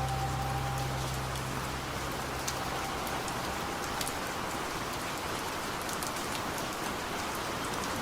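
Steady rain falling, with scattered sharper drop ticks. The last held notes of a song fade out in the first couple of seconds.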